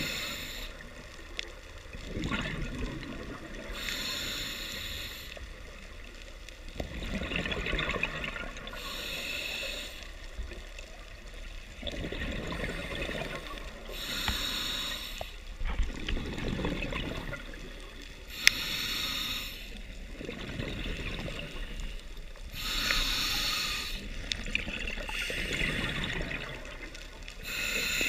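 Scuba diver breathing through a regulator: a short hissing inhale, then a rush of exhaust bubbles, about one breath every four to five seconds. A single sharp click about two-thirds of the way through.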